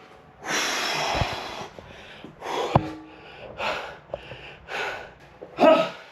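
A man breathing hard after a heavy set, with one long exhale followed by rapid, heavy breaths about once a second. A single sharp click comes near the middle.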